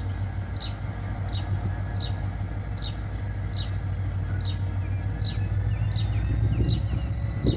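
Diesel engine of a GT22CU locomotive rumbling steadily as it approaches slowly, growing a little louder toward the end. Over it a bird repeats a short, high, falling chirp about one and a half times a second.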